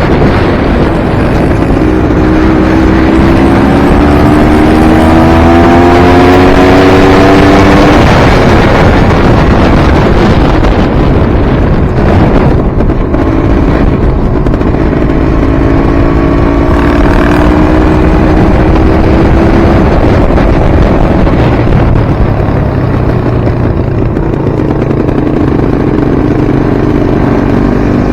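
Enduro dirt bike engine revving as it is ridden, its pitch climbing, dropping sharply about eight seconds in, then climbing again twice more.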